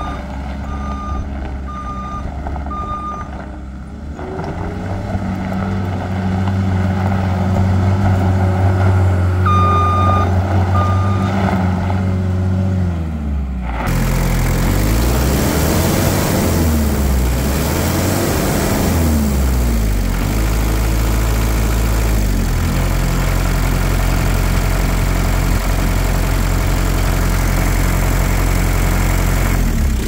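Case SR160 skid steer loader's diesel engine running while the machine moves, its backup alarm beeping about once a second at the start and twice more about ten seconds in; the engine speed rises around four seconds in and holds. Then, heard close at the open engine compartment, the engine is revved up and down several times and settles to a steady run.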